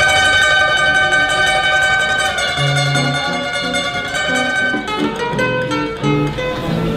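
Background music led by plucked strings: a held chord, then a stepping bass line from a little over two seconds in.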